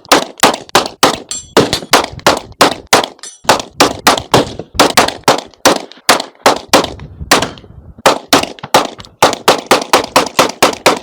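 Rapid semi-automatic gunfire, about three to four shots a second with a couple of short pauses, and a steel target ringing faintly when hit.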